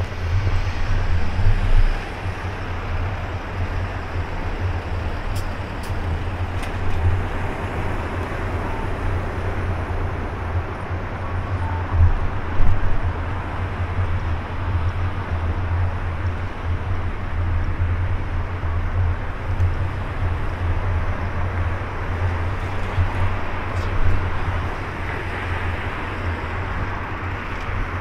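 Street traffic at a city intersection: a steady rumble of car and bus engines and tyres, with a few louder passing vehicles, the loudest about twelve seconds in.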